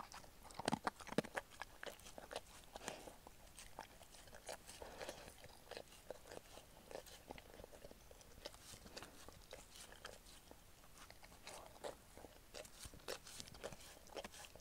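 Akita dog eating from a plastic food bowl: irregular crunching and chewing clicks, busiest in the first few seconds and again near the end.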